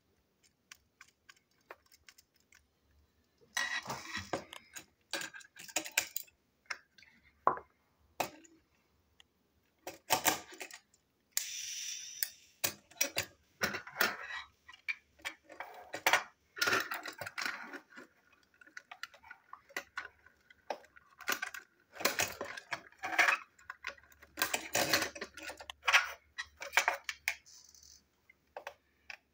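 Hard plastic parts of a toy train clicking, tapping and rattling as its body shell and chassis are handled and fitted together by hand, in irregular bursts starting a few seconds in.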